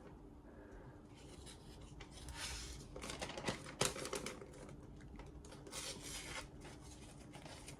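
A sheet of paper being sliced by the sharpened edge of a carbon-steel axe: a faint scratchy rasp, loudest about two to three seconds in, with a few small clicks. The edge is thick behind the bevel, so it tears the paper as much as it cuts it.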